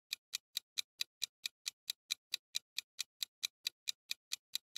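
Countdown-timer sound effect: a clock ticking evenly, about four ticks a second.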